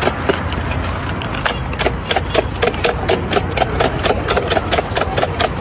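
Skateboard rolling over rough ground: a steady rumble from the wheels, with rapid clicks and knocks from the deck and wheels hitting cracks.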